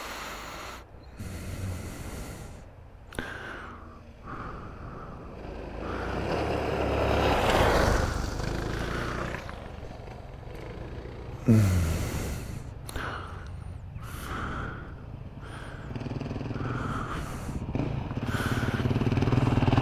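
Adventure and dual-sport motorcycles riding past on a dusty dirt trail. Engine and tyre noise swells to a peak about eight seconds in and fades. A sudden loud burst with a falling engine note comes near twelve seconds, and the noise builds again near the end as more bikes approach.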